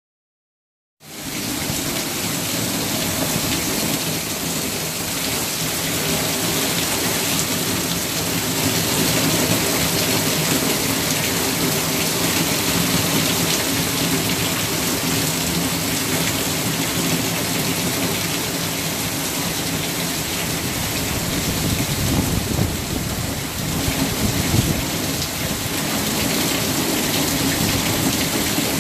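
Heavy rain pouring down steadily, starting about a second in, with a stronger low rumble about three-quarters of the way through.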